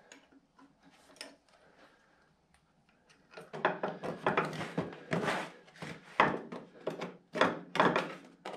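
A run of irregular scraping and rubbing strokes begins about three seconds in, after a few faint knocks.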